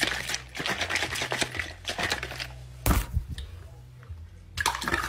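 Plastic sports bottle shaken hard, making a fast, dense rattling that stops about two and a half seconds in. A loud thump follows, and another loud burst comes near the end.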